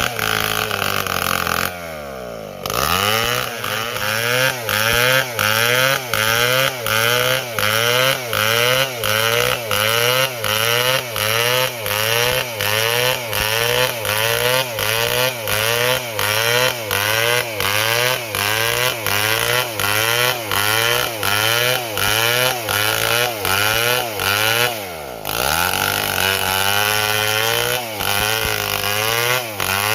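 Stihl MS 720 chainsaw cutting wood at high revs, its engine pitch rising and falling in a steady rhythm about one and a half times a second as the bar works through the cut. Twice, about two seconds in and again late on, the revs drop sharply and climb straight back.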